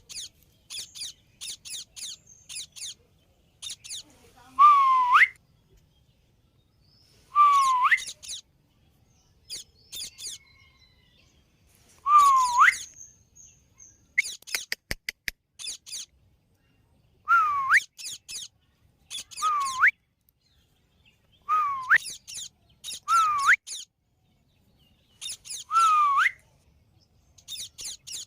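Indian ringneck parakeet calling: clusters of quick, high chirps, and every two to four seconds a louder whistled note that dips and then sweeps sharply upward, eight of them in all. A quick run of clicks comes about midway.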